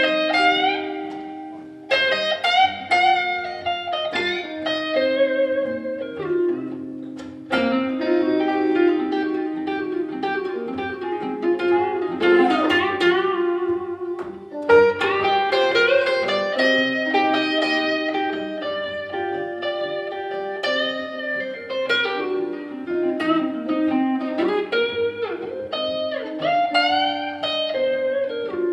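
Two acoustic guitars playing a picked blues instrumental passage.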